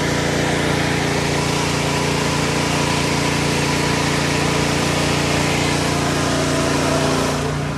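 Gas-powered positive-pressure ventilation fan running steadily: a constant small-engine drone with a low hum and the rush of the fan, dipping slightly near the end.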